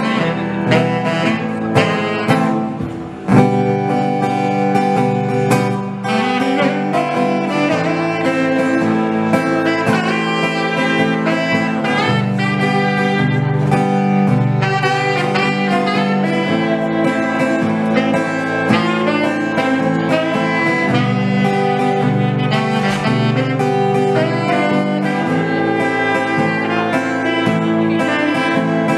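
Tenor saxophone playing a melodic line over acoustic guitar accompaniment, live.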